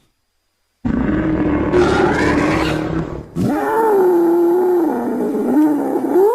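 Monster roar sound effects made from wild boar and entelodont recordings: after a brief silence, a rough, noisy roar of about two and a half seconds, then a longer pitched roar that wavers up and down in pitch.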